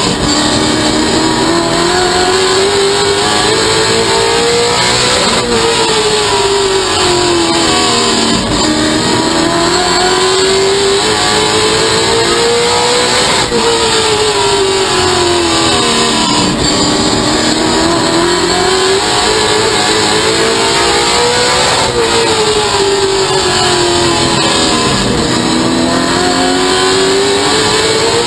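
Stock car race engine heard from inside the cockpit at racing speed. The revs climb and fall in a repeating cycle about every eight seconds as the car accelerates and lifts around the short oval.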